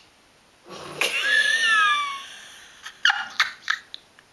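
A loud, exaggerated human snore: a rasping breath starting just under a second in, with whistling tones that slide downward, followed near the end by a few short sharp bursts.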